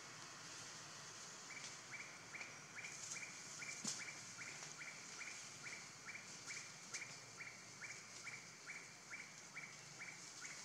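Forest ambience: a bird repeats a short, falling note about twice a second, starting about a second and a half in, over a steady high insect hiss. A single sharp click sounds just before four seconds.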